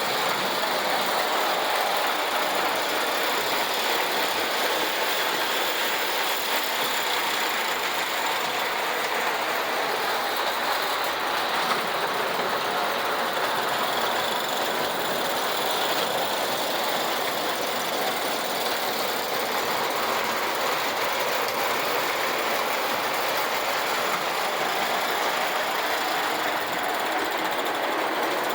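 Vintage Ives tinplate toy train running steadily around its track, its motor and wheels making a constant mechanical whir.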